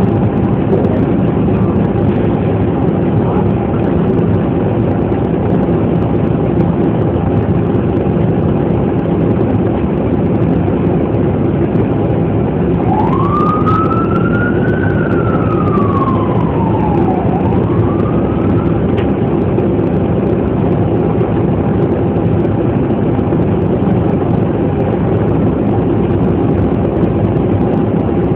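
Steady low rumble heard from inside a vehicle. About halfway through, an emergency siren outside wails for several seconds, rising, falling and starting to rise again.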